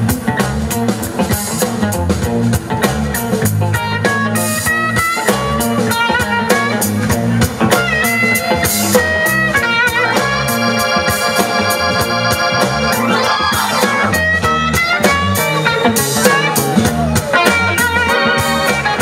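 Live blues band playing: electric guitar lines over bass, drums and an organ, with a chord held for about three seconds about ten seconds in.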